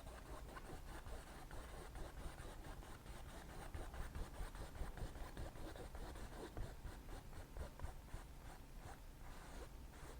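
Paintbrush bristles dabbing and stroking white oil paint onto a stretched canvas: faint, quick scratchy strokes, several a second.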